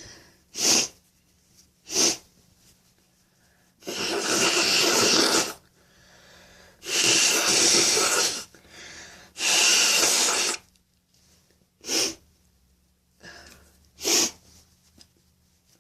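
A person with a runny nose sneezing and blowing their nose. Short, sharp sneezes come early and late, and three long, noisy nose blows fall between about four and ten seconds in.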